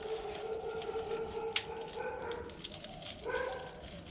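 A dog whining in long, drawn-out, high cries, with one sharp click about a second and a half in.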